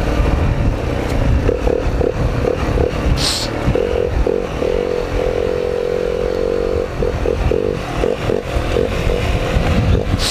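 Dirt bike engine revving on and off with the throttle as it rides a rough trail, holding steady for about two seconds in the middle, with clattering and scraping from the bike over the ground.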